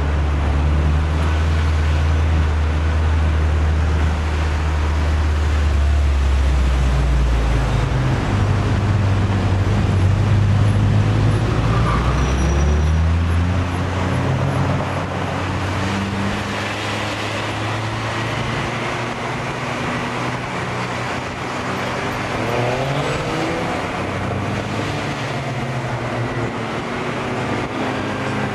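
Car and traffic noise in slow, heavy city traffic. A deep engine drone dominates for about the first half, then gives way to road noise with engine notes rising and falling.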